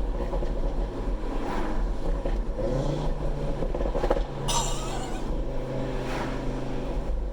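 Stage 3 tuned Audi RS3's turbocharged five-cylinder engine, heard from inside the cabin while driving, its pitch shifting a few times, with a couple of short exhaust crackles.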